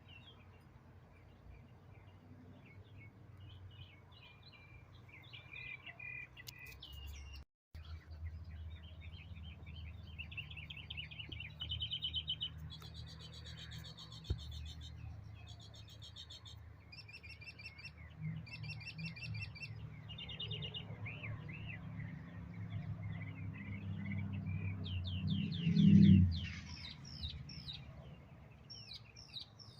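Songbirds chirping and trilling over and over. Under them is a low hum that builds and swells to a brief loud peak about 26 seconds in, then fades.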